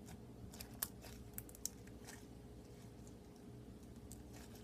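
Crunchy slime with a few styrofoam beads in it being squeezed and stretched by hand, giving faint scattered crackles and a few sharp little clicks, the loudest just under a second in.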